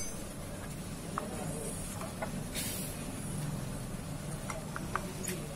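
Faint metallic clicks and taps as the centrifugal clutch of a Honda EX5 Dream is handled and fitted onto the engine, over a steady low background hum, with a brief hiss about two and a half seconds in.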